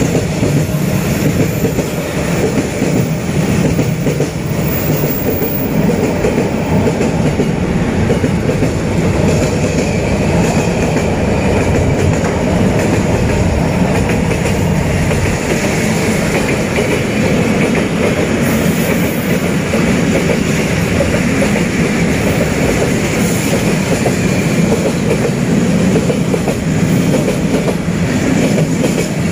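Freight train wagons, boxcars and open gondolas, rolling past close by: steel wheels running on the rails in a steady, loud rumble.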